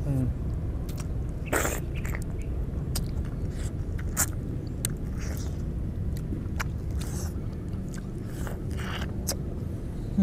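People biting into and chewing juicy orange halves, with wet clicks and smacks scattered irregularly throughout, over a steady low rumble.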